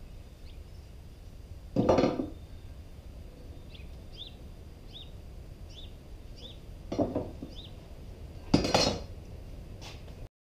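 Metal tools and hardware clattering on a wooden workbench as they are picked up and set down: three separate clanks, about two seconds in, around seven seconds and just before nine seconds.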